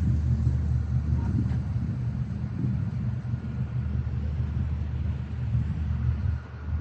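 Steady low drone of a river cruise ship's engines running.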